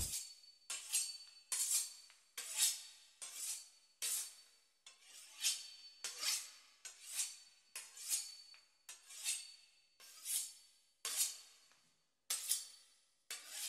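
Quiet, sparse percussion: a series of short, hissy swishes, roughly one every three-quarters of a second, with no bass or melody under them.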